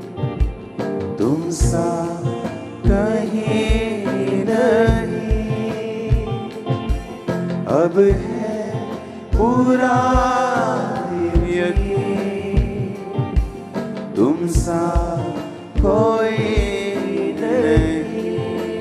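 Hindi Christian worship song: a man singing lead over a band, with a steady kick-drum beat.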